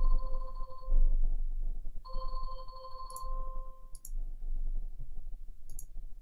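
Light clicking from a computer mouse and keyboard over a low steady hum. A steady electronic tone sounds twice, for about a second at the start and again for about two seconds from two seconds in.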